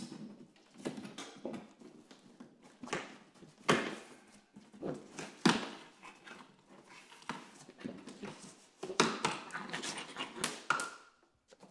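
Large cardboard box being opened by hand: flaps and lid rustling and scraping, with irregular soft knocks, and a short squeak near the end.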